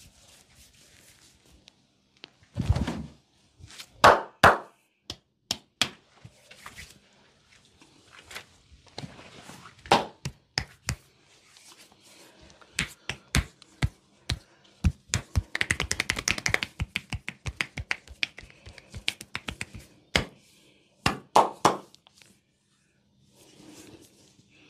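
Hands slapping and tapping on bare skin during a body massage: a string of sharp smacks and thuds at uneven intervals, with a dense, rapid flurry of slaps past the middle.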